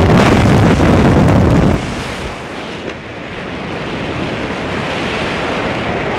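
Rushing wind buffeting the camera's microphone during a tandem skydive in freefall, a loud steady roar that eases a little about two seconds in.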